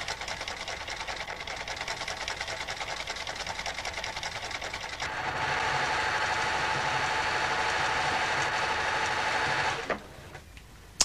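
Sewing machine running fast with an even, rapid stitching rhythm, its needle and cam-driven fancy-stitch mechanism working. About halfway through it gets louder and denser, then it stops about a second before the end.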